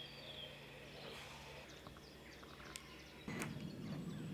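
Faint outdoor ambience with a few short bird chirps near the start and some light clicks; it gets slightly louder, with a low rumble, about three seconds in.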